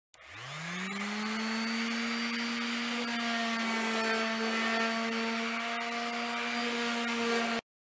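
Handheld electric random orbital sander starting up and running on a flat board: its motor rises in pitch over about the first second, then runs steadily with a rough sanding hiss. The sound cuts off suddenly near the end.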